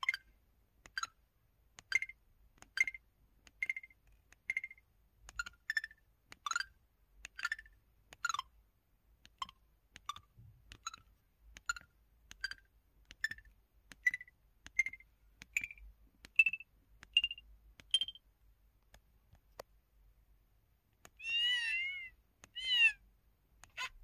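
Keypad tones of a Samsung Anycall SPH-S3900 mobile phone in its 'Crystal' button-sound theme: short, clear beeps, one per key press at roughly one a second, each key a different pitch. Near the end the phone switches to the 'Exciting' theme, giving two longer warbling chirps that slide up and down in pitch.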